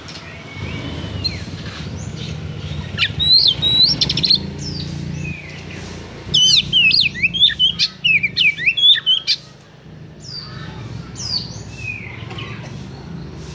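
Oriental magpie-robin singing: scattered slurred whistles, broken by two loud bursts of quick, rising and falling whistled notes, about three seconds in and again at about six seconds for some three seconds, over a low background murmur.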